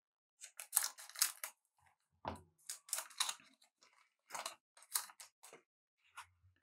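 Trading cards and their packaging being handled: about ten short, scratchy rustles and snaps at irregular intervals.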